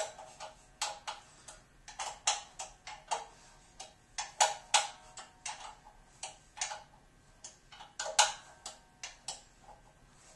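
Sharp metallic clicks of a wrench tightening bolts, coming irregularly a few times a second.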